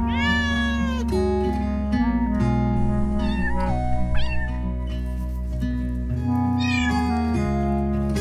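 A cat meowing over background music: one long meow falling in pitch at the start, then shorter meows around the middle and again near the end.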